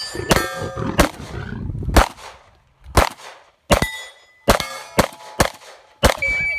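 A string of handgun shots at steel targets, about one every half second to a second, each hit followed by the ringing clang of a steel plate.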